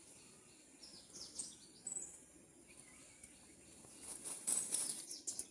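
Faint outdoor ambience of small birds chirping, a few short high falling chirps, with a patch of rustling noises about four seconds in.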